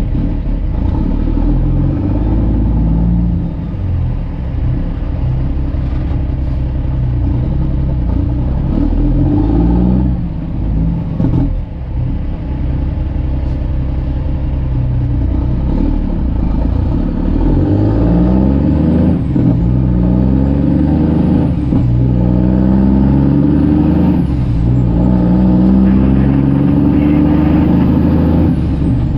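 Straight-piped Cummins diesel of a Kenworth C500 winch tractor under way, heard from inside the cab. Through the second half its pitch climbs and drops back several times as it pulls through the gears.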